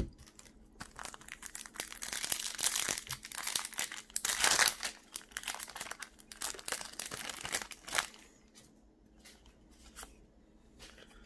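Foil wrapper of a Pokémon card booster pack crinkling and tearing as it is pulled open by hand, loudest about two and four seconds in. Near the end only faint rustling and ticks as the cards are handled.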